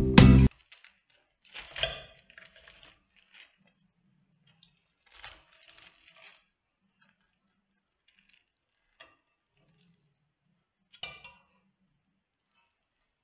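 A metal fork cutting into a waffle and clinking and scraping against the plate: a few short clinks, around two, five and eleven seconds in, with a lighter tap near nine seconds.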